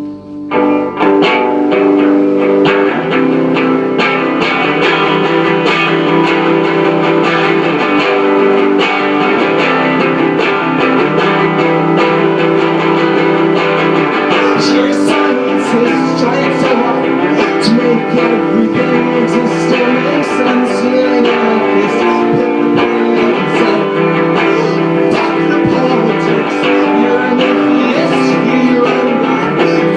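Guitar played steadily through an instrumental passage of a song, strummed chords and sustained notes with no singing.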